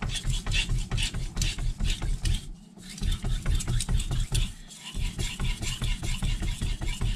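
Carbon-steel knife blade being stroked rapidly back and forth on a soft, unsoaked Naniwa Aotoshi 2k whetstone, a rhythmic grinding scrape at about four strokes a second. It pauses briefly twice and stops abruptly at the end.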